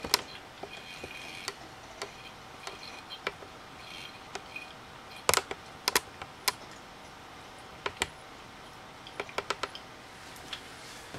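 Repaired SATA hard drive running while files are copied off it: irregular sharp clicks, some in quick clusters, over a faint steady whine. The owner calls the noise not pretty and thinks the failing drive is on its last chance.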